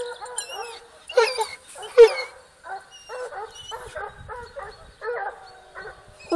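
A pack of Porcelaine hounds and a beagle baying in chorus while working a wild boar: many short, overlapping bays, loudest about one and two seconds in.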